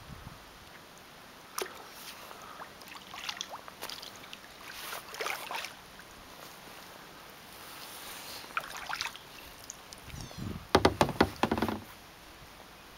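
Kayak paddle strokes, with water splashing and dripping off the blades in uneven bursts. Late on comes a quick run of loud knocks.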